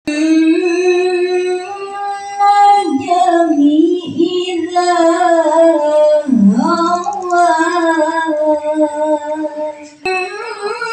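A woman's solo voice singing unaccompanied into a microphone over a PA, in long held notes with slow melismatic bends and glides. The voice breaks off briefly near the end, then starts the next phrase.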